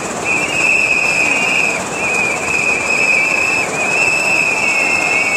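Shrill whistles blown in long held blasts, one after another with short breaks, with a second whistle sliding in just below the first near the end, over the steady noise of a crowd.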